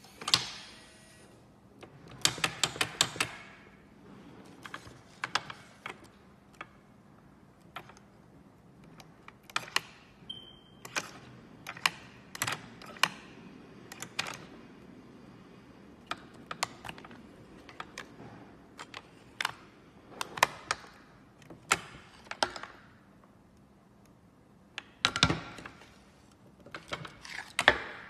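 Repeated clicks and knocks of a fingerprint smart glass-door lock being handled and worked by hand, with quick runs of clicks about two seconds in, near 25 seconds and near the end. One short electronic beep about ten seconds in.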